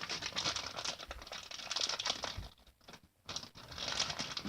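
Model Magic clay being pulled from its pack and handled over a bowl: a rapid run of fine crinkling, crackling clicks that stops for about a second midway and then starts again.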